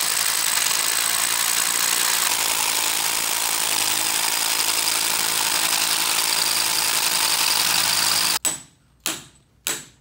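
Electric rotary hammer drill running steadily while it bores into the concrete vault wall through a steel mounting plate. It stops suddenly about eight seconds in, followed by two sharp hammer blows a little over half a second apart, each ringing briefly.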